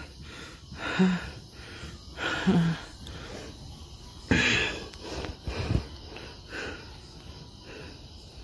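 A man crying: wheezing, shaky breaths and sniffles, with a few short whimpering catches in the voice, the loudest about four seconds in.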